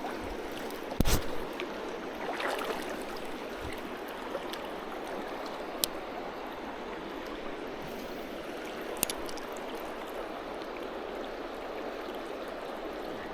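Creek water flowing steadily, with a thump about a second in and a few faint clicks later on.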